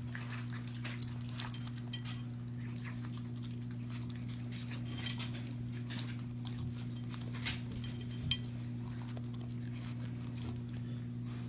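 Scattered light clicks, taps and clinks over a steady low hum, with a slightly louder tap about eight seconds in.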